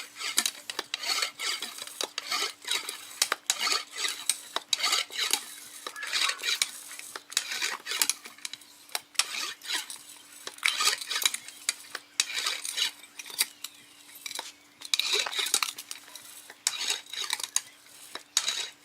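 Hand pump inflating a newly fitted bicycle inner tube: a rhythmic hiss of air with a clack from the pump on each stroke, about one to two strokes a second, with a few short pauses.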